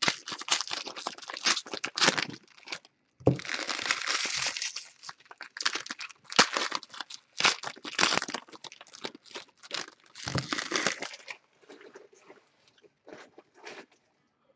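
Plastic wrapping being crinkled and torn in irregular bursts of crackling with a few sharp snaps. The crackling thins out and grows fainter about three quarters of the way through.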